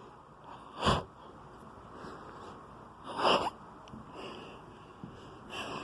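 A sleeping elderly man snoring: a short rasping breath about a second in, a longer breathy one around three seconds in, and another starting near the end.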